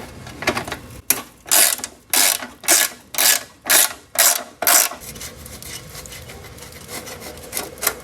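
Socket ratchet wrench backing out a 10 mm bolt, its pawl clicking in even strokes about twice a second for the first five seconds, then stopping.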